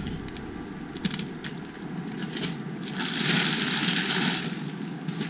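Plastic packaging bags handled and crinkling: a few light crackles and clicks, then a louder stretch of rustling about three seconds in that lasts over a second as a plastic bag is pulled around.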